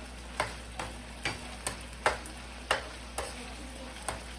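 Ground meat sizzling in a frying pan while a utensil breaks it up, knocking against the pan about twice a second.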